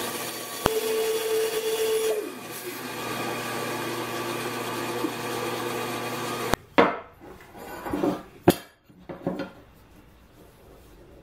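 JIB benchtop band saw running steadily, its blade cutting through a plywood block for about a second and a half near the start. About six and a half seconds in, the saw sound stops abruptly and is followed by a few knocks and scrapes of a plastic square and a pencil on a wooden board.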